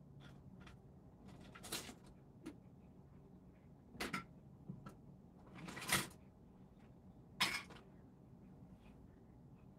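Light taps and clicks of fingers on a phone's touchscreen, with four short louder whooshing or rustling noises spaced a second or two apart, over a low steady room hum.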